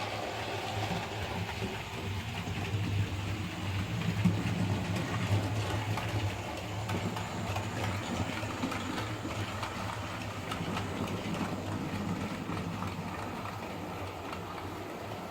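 OO scale model train running along the layout's track: a steady motor hum with faint small clicks from the wheels on the rails.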